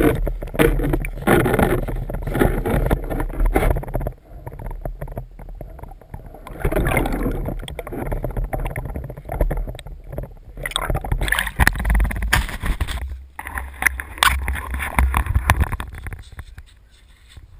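Muffled water sloshing and gurgling with irregular small knocks and a low rumble, heard through a camera's waterproof housing submerged in a hole in the ice.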